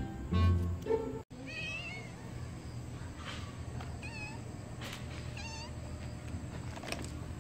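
Stray cat meowing: three short, wavering meows a couple of seconds apart. Background music plays for about the first second, then cuts off.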